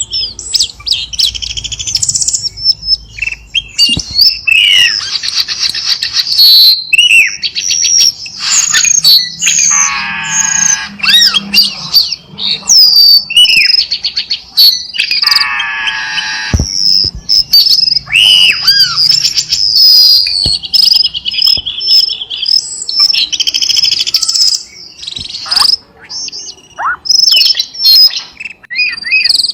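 Cucak keling songbird singing a long, varied song of quick whistled notes, rapid trills and loud harsh buzzy phrases, with hardly a pause.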